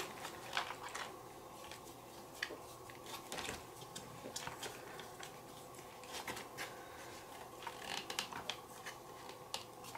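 Hex screwdriver turning a screw out of the rear shock mount of an RC buggy: faint, scattered small clicks and scrapes over a low steady hum.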